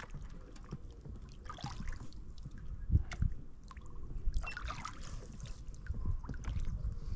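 Oars dipping and splashing as a small inflatable dinghy is rowed across a lake, two strokes about three seconds apart, over a low rumble.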